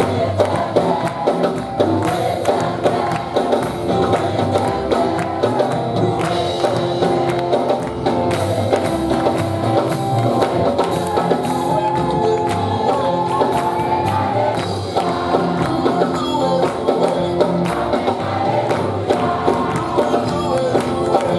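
Lively gospel praise music: a congregation singing together over a band with a steady percussion beat.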